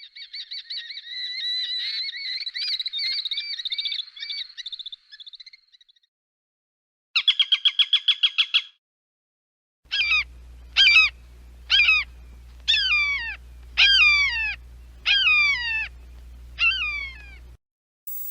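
Peregrine falcon calls in three bouts: a rapid chattering trill, then a fast run of about ten sharp notes, then seven harsh screams, each falling in pitch, about one a second. A low steady hum lies under the last bout.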